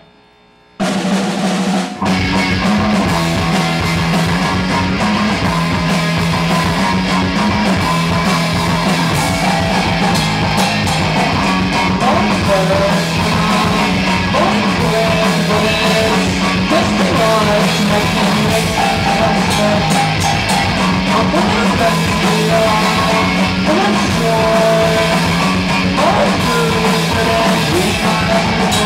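Live rock band playing a song, with a pounding drum kit under bass and guitar; the band comes in abruptly about a second in after a moment of quiet.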